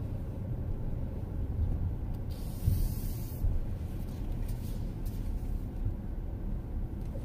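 Steady low rumble of a car's engine and tyres heard inside the cabin while driving slowly, with a brief hiss a little over two seconds in.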